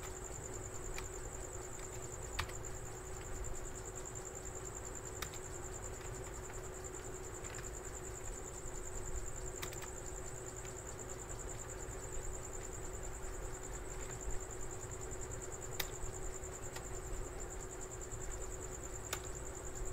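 Faint keyboard key clicks, one every few seconds, as Ctrl+V is pressed repeatedly to paste text, over a steady high-pitched whine and low hum of background noise.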